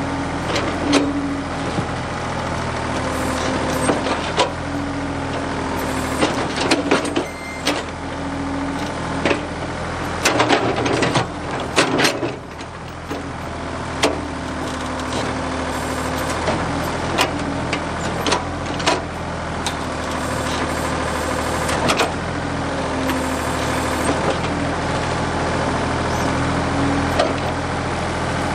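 Ford 555 backhoe's diesel engine running steadily, with repeated sharp knocks and clanks over it.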